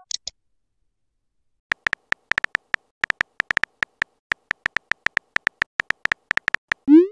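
Keyboard typing clicks from a texting app: a quick, irregular run of short high ticks as a message is typed letter by letter, followed near the end by a short rising swoosh as the message is sent. There is a brief high pop right at the start.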